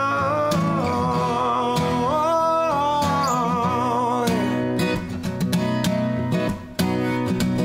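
Steel-string acoustic guitar being played: over the first half a held melody line slides between a few pitches above the steady chords, then it turns to brisk strumming with a brief break near the end.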